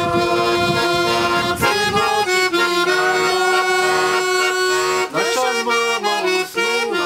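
Accordion playing long held notes and chords between sung lines of a Russian folk-style song, with a few short slides in pitch near the end.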